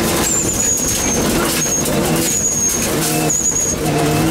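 Mitsubishi Lancer Evo VII rally car heard from inside the cabin: its turbocharged four-cylinder engine running hard on a gravel stage, the note shifting and breaking off briefly as the driver changes gear or lifts, over a rough rumble of gravel under the car. A thin high whistle comes and goes four times.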